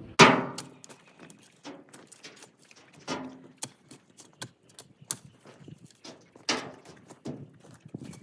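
A series of irregular knocks and thuds, the loudest just after the start, with a few more spread through the rest, some with a brief ring.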